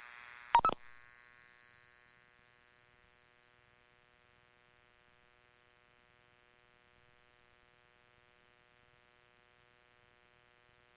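Police radio scanner channel between transmissions: a short sharp squelch burst just after the start, then a steady electrical hum with static hiss that grows fainter over the first few seconds.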